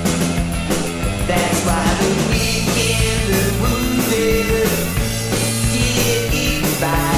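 Rock music: a full band recording with a steady drum beat and sustained pitched instruments.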